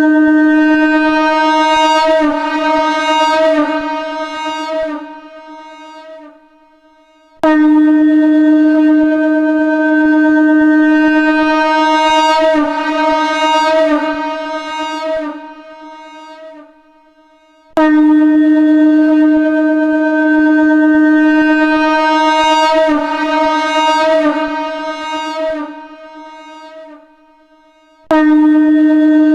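Shankh (conch shell) sounding long, steady blasts on a D# tone. Each blast starts abruptly, wavers in its upper tones partway through, then fades away. A new blast begins about every ten seconds, three times.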